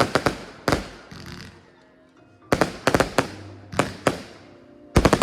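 Fireworks shells bursting in quick clusters of sharp bangs, several in a row each time, with a short echo after each, over music playing steadily underneath.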